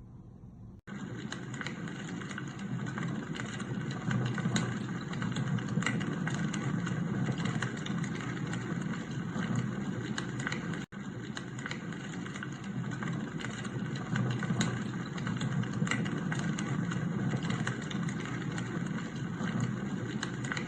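Sunrise alarm clock's sound machine playing a white-noise track through its small built-in speaker: a steady rushing noise, heaviest in the low end. It starts suddenly about a second in and drops out for an instant about eleven seconds in.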